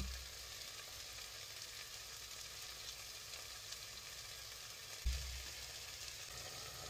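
Butter melting and sizzling with frying onions and garlic in a stockpot, a steady hiss. There is a low thump right at the start and a louder one about five seconds in.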